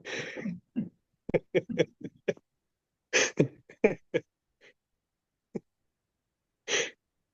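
A person's voice making short vocal sounds in several brief bursts, with a breathy burst at the start and complete silence between the bursts.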